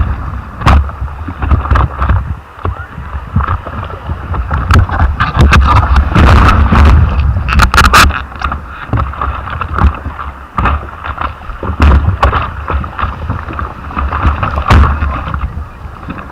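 Wind buffeting the camera microphone in gusts, a heavy uneven rumble, with scattered knocks and clicks.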